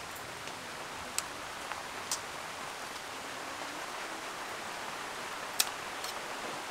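A steady hiss with a few sharp clicks, the loudest about five and a half seconds in.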